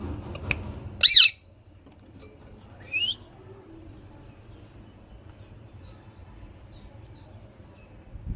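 A green parrot giving one loud, harsh squawk about a second in, then a shorter rising call near three seconds, with faint chirps after.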